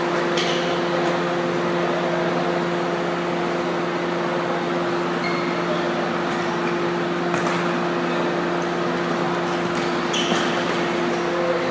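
Steady humming ambience of an indoor futsal hall during play, with a few short sharp knocks and brief high squeaks from the court.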